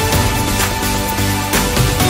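Electronic background music with a steady beat, about two beats a second, under held synth chords.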